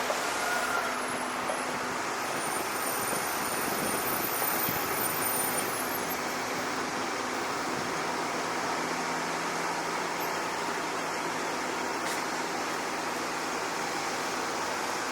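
Steady engine and traffic-like rumble with a faint low hum, the even background noise of motors. A faint high whine sounds for a few seconds near the start.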